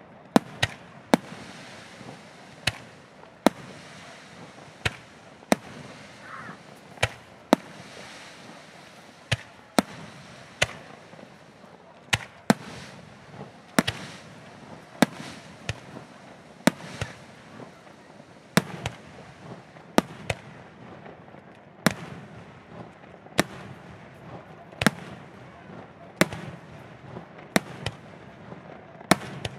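Aerial fireworks display: shells bursting in a steady run of sharp bangs, roughly one a second, with a constant hiss between the bursts.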